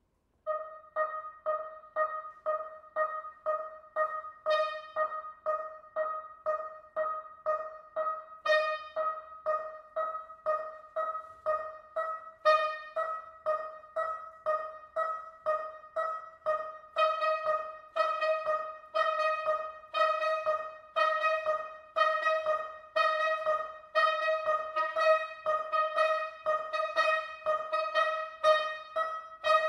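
Two soprano saxophones playing a steady pulse of short repeated notes on one pitch, two to three a second. Brighter accented notes cut in about every four seconds, and from about halfway on the texture grows denser.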